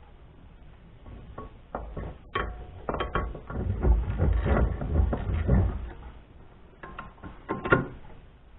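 Hand tools working on steel parts: irregular metallic clicks, knocks and clinks, some with a short ring, busiest through the middle with a sharper knock near the end.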